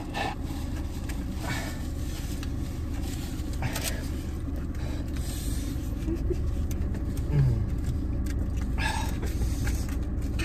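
Steady low rumble of a car idling, heard from inside the cabin, with a few short noises over it.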